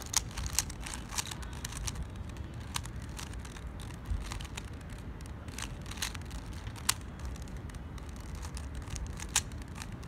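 Plastic 3x3 Rubik's cube clicking as its layers are twisted while it is being scrambled, in irregular clicks over a low steady rumble.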